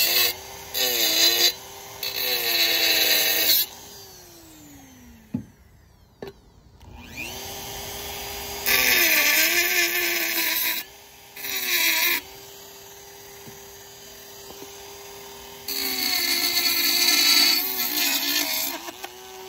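Dremel rotary tool with a cut-off wheel cutting steel: a steady high motor whine, with a loud harsh grinding hiss in bursts each time the wheel bites. About four seconds in, the motor winds down and stops, then spins back up about three seconds later.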